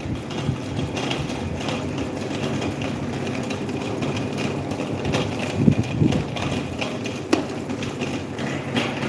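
Electric table fan running with a steady motor hum and blade whir, with a couple of low bumps a little past halfway and a sharp click later.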